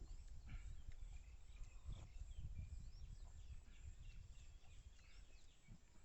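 Quiet outdoor ambience: scattered faint bird chirps over a low rumble.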